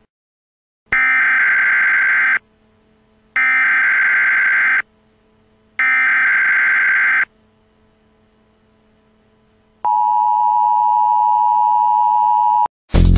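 Telephone sound effect: three ringing bursts about a second apart, then a steady telephone tone held for about three seconds that cuts off suddenly. Loud electronic music starts right at the end.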